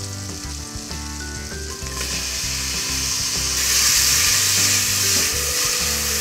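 Chopped onion sizzling in melted fat in a pressure cooker as it is stirred with a spatula. The sizzle grows louder about two seconds in, and louder again from about three and a half seconds.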